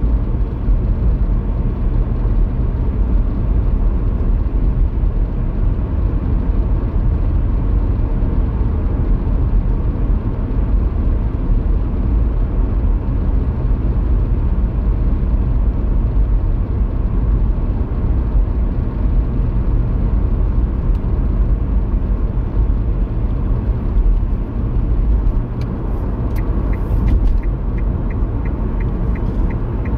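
Car driving along, heard from inside the cabin: steady road and tyre rumble with engine noise. Near the end a light, regular ticking starts, about three clicks a second.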